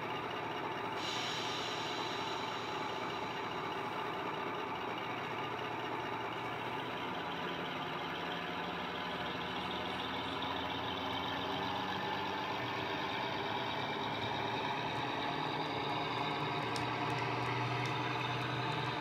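Model diesel locomotive's DCC sound decoder playing its diesel engine sound through the model's small speaker, running steadily as the train pulls slowly away. The low engine note grows stronger about halfway through and again near the end.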